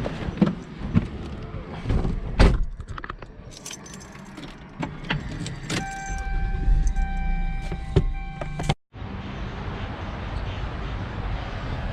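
Someone getting into a car: keys jangling and clicking, a door knock about two and a half seconds in, then a steady electronic warning chime from the car for a few seconds. It cuts off suddenly and gives way to steady car engine and road noise inside the cabin.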